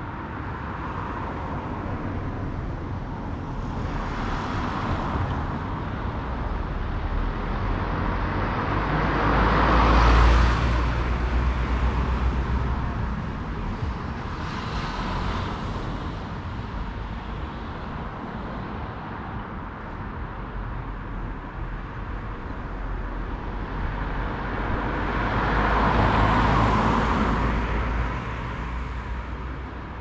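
Road traffic: cars passing one after another, their tyre and engine noise swelling and fading, with the loudest passes about ten seconds in and again near the end.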